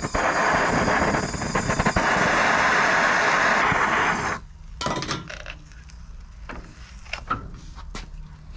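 Handheld gas torch flame hissing steadily while heating a part clamped in a vise, then shut off about four seconds in. A few light clicks and knocks follow.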